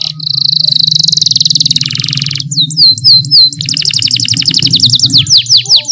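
Domestic canary singing: a very fast buzzing trill, then a few quick downward-sweeping notes about two and a half seconds in, another fast trill, and a row of slower downward sweeps near the end.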